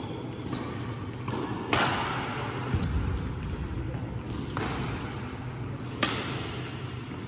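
Badminton rackets striking a shuttlecock in a fast doubles rally: about six sharp hits, each with a brief high-pitched ring from the strings.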